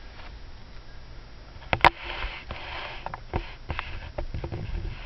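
Small pieces of costume jewelry being handled and set down. A sharp click comes a little under two seconds in, followed later by a run of lighter clicks and taps, with a soft breathy sniff between them.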